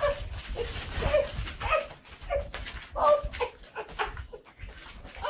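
A dog whining and yipping in short calls, some sliding in pitch, about two a second.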